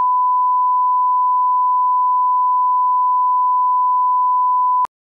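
A steady 1 kHz line-up test tone, the reference tone that goes with colour bars, held at one pitch and cutting off abruptly near the end.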